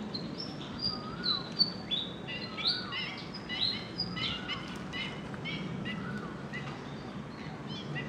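Small birds chirping and calling: a busy chorus of short whistled notes, some rising and falling in pitch, thickest in the first half, over a steady low background hum.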